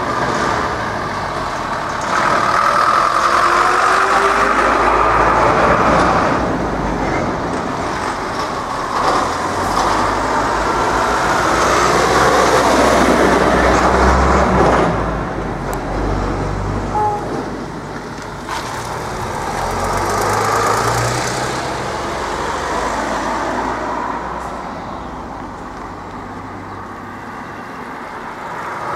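Road vehicles driving past close by, one after another: a lorry first, then a bus whose engine rumble is the loudest part, then a passing car, with the traffic noise fading lower near the end.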